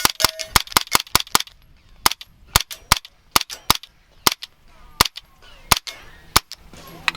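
Suppressed SIG MPX 9 carbine with an AAC Ti-Rant 9 suppressor firing 124-grain 9mm rounds: a quick string of about eight shots, then slower single shots spaced about half a second to a second apart.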